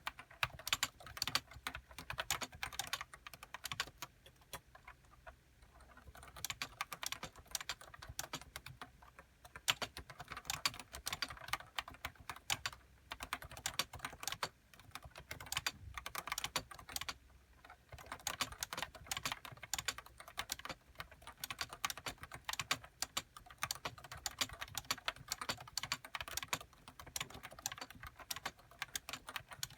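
Typing on a Nissho KB106DE keyboard with Topre electrostatic-capacitive switches, 30 g uniform weighting, and HiPro keycaps: a continuous run of keystrokes with a few brief pauses.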